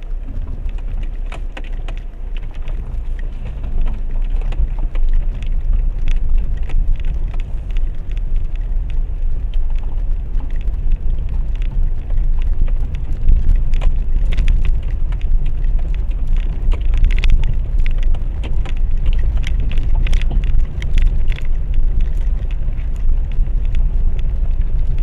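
Renault Duster driving over a rough stony mountain road, heard from inside the cabin: a steady low rumble with constant crackling and knocking of stones under the tyres and suspension, growing louder about four seconds in.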